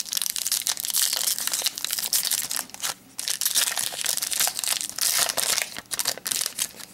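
Foil wrapper of a Topps Strata football card pack being torn open and pulled apart by hand: a dense crinkling and crackling, with a short pause about three seconds in.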